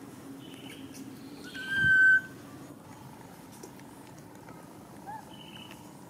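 A long-tailed macaque's high, steady squeal lasting about half a second, about two seconds in, with a short, softer call near the end.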